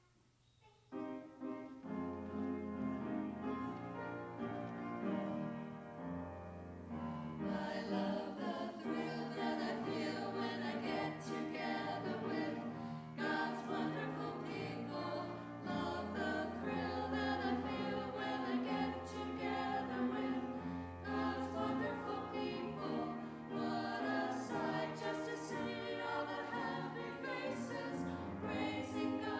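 A small group of five women singing a hymn together in parts over a steady instrumental accompaniment. The accompaniment starts alone about a second in, and the voices enter at about seven seconds.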